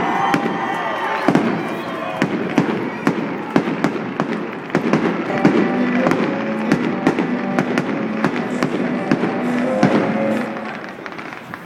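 Fireworks going off in quick succession: many sharp bangs and crackles, with music playing underneath. The bangs thin out and the sound drops near the end.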